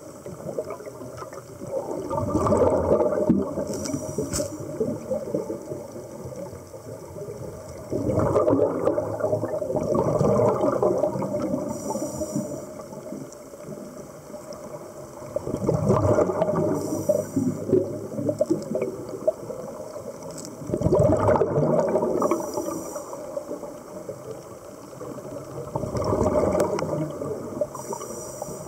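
Underwater breathing of the person filming: a gurgling rush of exhaled air bubbles about every five to six seconds, five times, each followed by a short faint high hiss.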